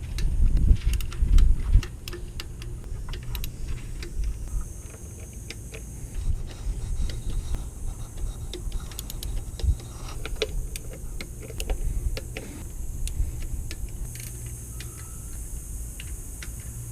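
Hand tools and metal parts handled in the engine bay: irregular light metallic clicks and clinks of sockets and bolts, with handling bumps.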